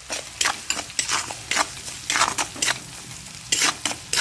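Steel spatula stirring and scraping a ginger-turmeric paste frying in mustard oil in a kadai: a low sizzle under a run of irregular scrapes, the loudest a little before the end.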